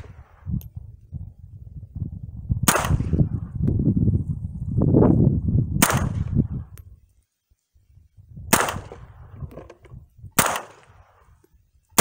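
Smith & Wesson M&P 15-22 semi-automatic .22 LR rifle firing Federal AutoMatch rounds in slow single shots: four sharp cracks two to three seconds apart, and a fifth right at the end. The rifle cycles each round without a jam on its new Volquartsen extractor.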